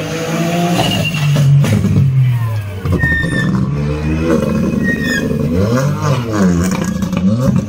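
Rally car's engine revving hard through a tight corner, its pitch rising and falling again and again as it lifts off and accelerates. A few sharp cracks come about one and a half seconds in.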